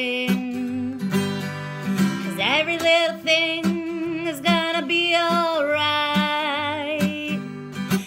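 Acoustic guitar strummed in a steady rhythm, with a woman singing along in long, held notes that waver.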